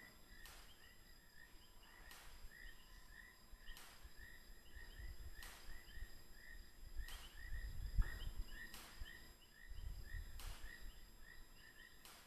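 Faint night chorus of short, even chirps, about three a second, with a sharp high tick about every second and a half. A low rumbling noise swells and fades several times in the middle and towards the end.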